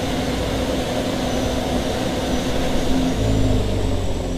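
Standby generator's engine running steadily, then starved of fuel with its gas shutoff valve closed. About three seconds in, its hum drops in pitch as it begins to wind down.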